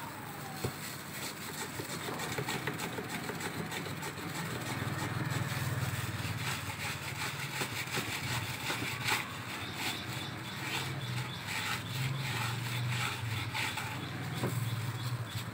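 A potato being slid back and forth across a wooden mandoline slicer's blade in a bowl of water, cutting thin slices with a short scrape at each stroke, over a steady low hum.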